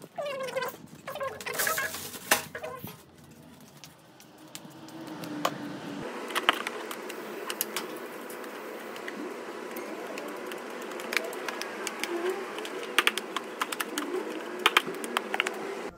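Broom sweeping a floor: a steady scratchy swishing of bristles with many sharp clicks and knocks, heavier near the end.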